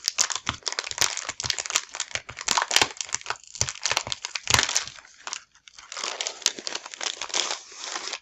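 A package being opened by hand, its wrapping crinkling and crackling densely, with a brief lull about five and a half seconds in.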